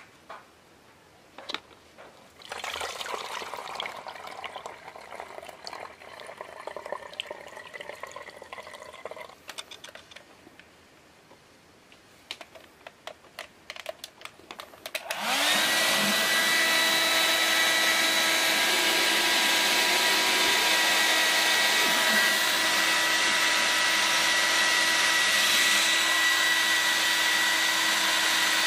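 Liquid splashing and being poured out for several seconds, with a few knocks. About halfway through, a hair dryer switches on with a rising whine and runs steadily on high, blowing into the stove's rinsed steel fuel tank to dry it.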